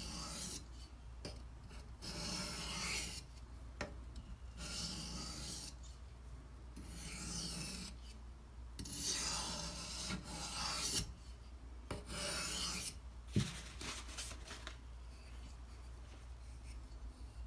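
Steel knife edge scraping across a wet 1000-grit whetstone in several slow, light strokes, each about a second long, to cut off the burr. A sharp click comes a little after 13 s.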